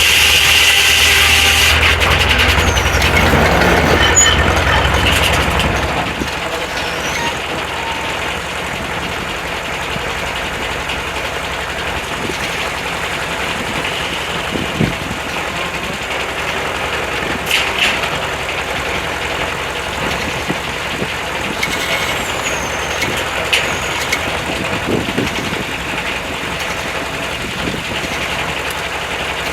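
Corley 395 circular sawmill running. It is louder for the first few seconds as the end of a cut fades, then the engine and blade run on steadily, with a few scattered knocks and clanks.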